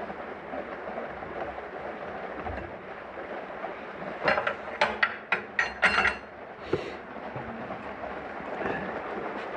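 A steady engine running, with a quick run of about six sharp metal knocks and clinks a little before the middle, then a single knock, as of tools working on a skid steer's hydraulic fitting.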